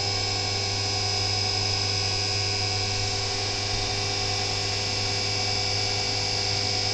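CNC vertical milling machine drilling into a 6082 aluminium engine case under flood coolant: a steady hum and whine from the spindle with the spray of coolant, unchanging throughout.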